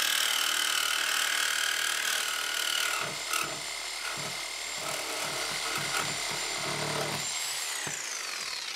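Corded DeWalt reciprocating saw cutting through a seized, corroded old tub drain pipe from below, with a steady motor whine; near the end the motor pitch falls as the saw winds down.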